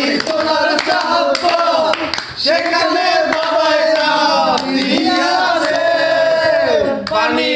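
Group of young men singing a Bengali song together, with hand claps keeping time.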